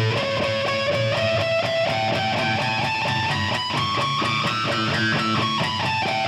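Distorted electric guitar: the open A string is struck with repeated downstrokes, several a second, as the pick and thumb move along the string, sounding pinch harmonics that jump between different high pitches.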